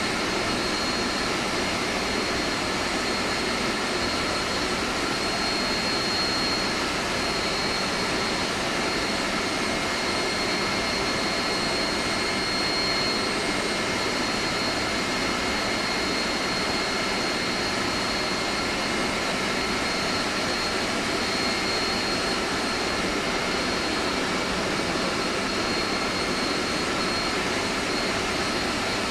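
Steady machinery noise of an air-conditioning plant room: a constant rushing drone with a few steady high-pitched whines over it.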